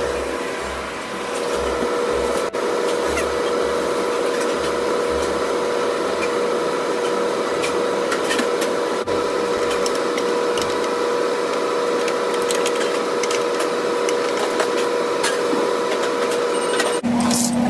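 Grill brush scrubbing a hot clamshell grill's plates coated in liquid grill cleaner, with a steady kitchen machine hum underneath. Near the end the hum changes to a lower tone.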